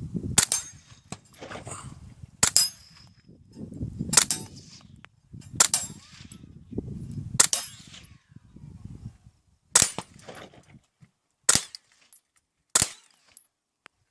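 Beretta Cx4 Storm 9mm carbine fired through an AAC Ti-Rant 9 suppressor, run dry, with subsonic ammunition: eight single shots, one every one to two seconds.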